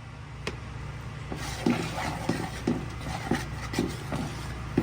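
Soft, quick knocks of kitchen work with the roti dough, about three a second, starting a little over a second in, over a steady low hum.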